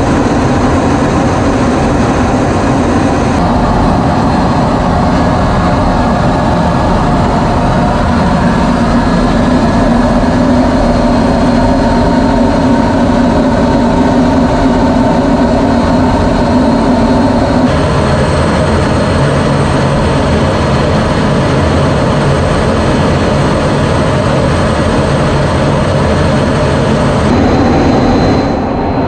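Jet engine running steadily with a thin high whine over a loud rumble. The sound changes abruptly a few times.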